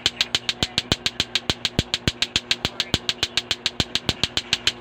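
Lato-lato clackers: two hard plastic balls on a string knocking together in a steady, unbroken rhythm of about six or seven sharp clacks a second, with a low steady hum underneath.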